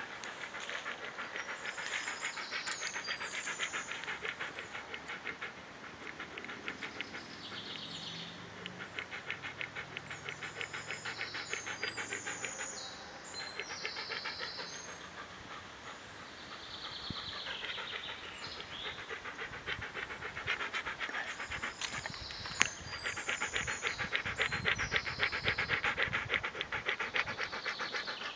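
A blonde Bouvier dog panting rapidly close to the microphone, about three breaths a second, in and out, with its tongue hanging out. One sharp click sounds near the end.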